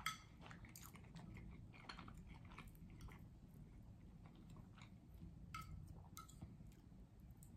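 Faint chewing of pasta close to the microphone, with a few soft mouth clicks.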